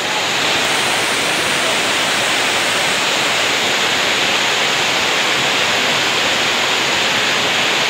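Swift river current rushing over rocks: a steady, loud wash of flowing water.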